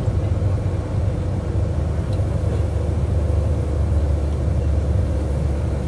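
King Long XMQ6871CY bus heard from inside the passenger cabin while driving: a steady low rumble of engine and road noise.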